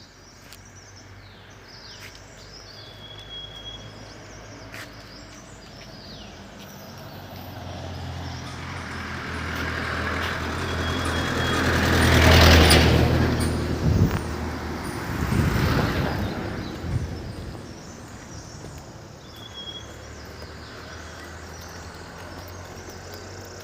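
A motor vehicle approaching and passing by, growing louder to a peak about twelve seconds in and then fading away over several seconds.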